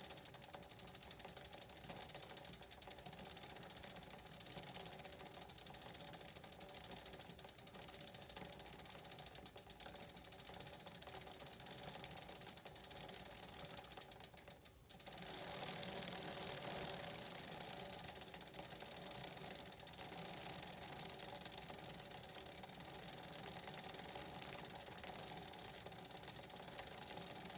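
Bicycle rear-hub freewheel pawls clicking in a fast, steady ratchet as the chain is turned through freshly applied lube, with a brief pause about halfway through.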